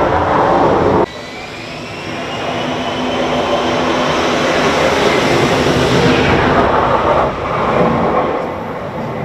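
F-35B stealth fighter's jet engine running loud. The sound cuts off abruptly about a second in, then builds again with a rising whine as the jet rolls toward and leaves the carrier's ski-jump on a short take-off. Heard through the ship's bridge windows.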